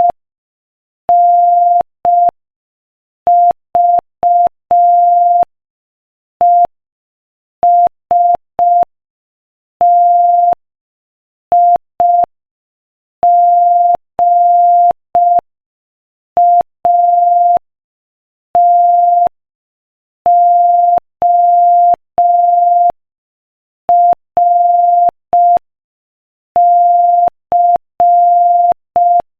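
Morse code sent at 5 words per minute: a single steady beeping tone keyed on and off in short dots and longer dashes, with short gaps between letters and longer gaps between words.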